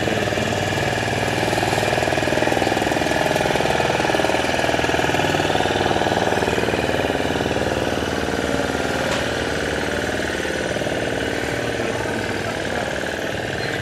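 Fishing boat engine running steadily with a rapid, even pulse, easing off slightly near the end.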